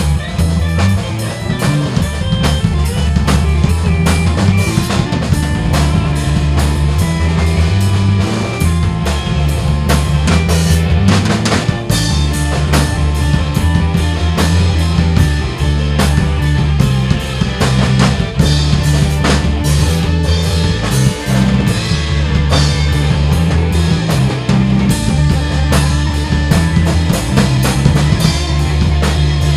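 Band music: a drum kit keeping a steady beat over an electric bass line, with electric piano and organ from the album's rock-leaning lineup.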